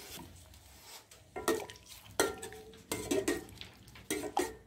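A steel ladle clinks against a steel pot and bowl about seven times, some strikes ringing briefly, as boiled dal is stirred into the cooked masala.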